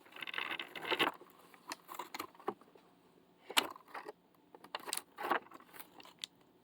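Hands handling and opening a small advent calendar toy package: a crinkly rustle for about the first second, then scattered light clicks and taps.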